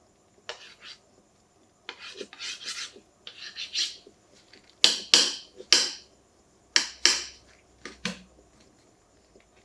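A carbon-fibre soft phone case being handled: bursts of rubbing and scraping. Softer runs of short strokes come first, then several sharper, louder scrapes in the second half.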